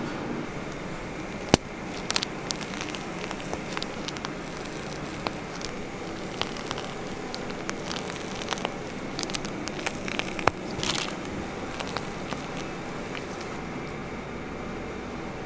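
Steady hum of a shop kitchen with scattered light clicks, taps and crackles of hands working at the counter while donuts are decorated. There is a sharp knock about 1.5 seconds in and another about 10.5 seconds in.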